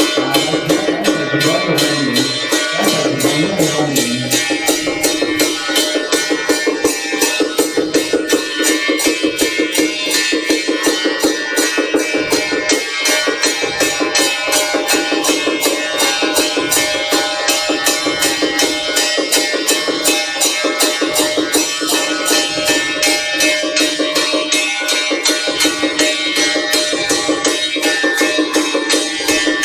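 Temple procession music: percussion keeping a fast, even beat under held tones.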